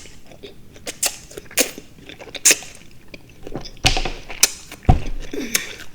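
Close-miked chewing of juicy fresh fruit: irregular wet mouth clicks and smacks, with a couple of louder low thuds about four and five seconds in.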